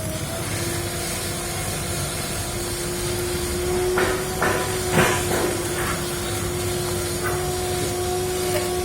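Workshop noise: a steady hum and hiss, with a few sharp knocks a little past the middle, like hammer blows on metal.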